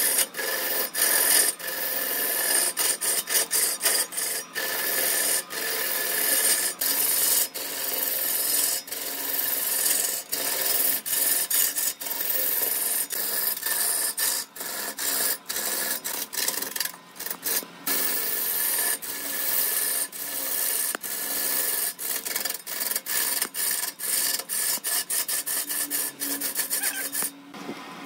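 Hand-held turning tool cutting into a large log spinning on a wood lathe: a continuous hissing rasp of wood being shaved away, broken by many brief dips. Near the end the cutting stops.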